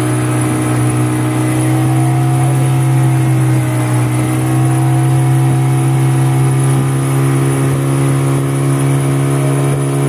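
Outboard motor of a small river boat running steadily under way, its pitch dipping slightly a few seconds in and then settling back.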